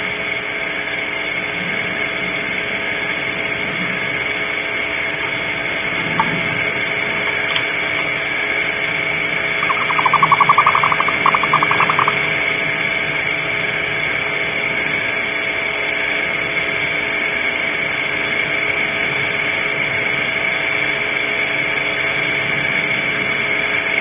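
Steady electronic hiss with a constant hum from an outdoor night camera's microphone. About ten seconds in, a short run of rapid pulsed notes lasts about two seconds.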